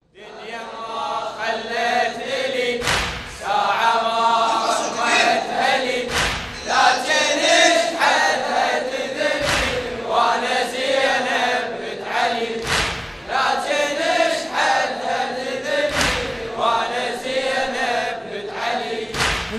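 A chorus chanting a Shia latmiyya (mourning chant) in unison, with a heavy beat about every three seconds setting the pace.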